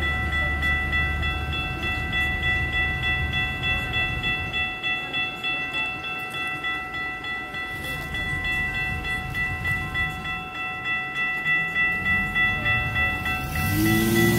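Safetran Type 3 electronic crossing bells ringing with steady, evenly repeating dings while the crossing is activated. They cut off near the end, and the gate mechanisms start up as the arms lift. A low rumble fades out over the first few seconds.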